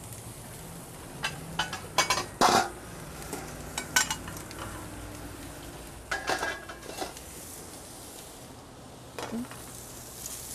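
Duck skewers and breast sizzling on a gas barbecue grill, with metal tongs clinking and clattering against the grate and a pan several times, loudest about two to four seconds in and again around six to seven seconds.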